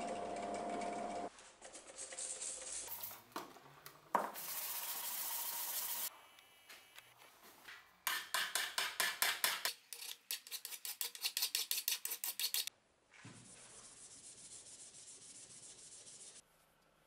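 A metal part held against a disc spinning in a bench drill press, with the motor's steady whine underneath. After a short lull comes a fast run of hand-file strokes on metal clamped in a vise, about six strokes a second, with a brief pause in the middle. It ends with quieter, steady hand rubbing of a small metal part.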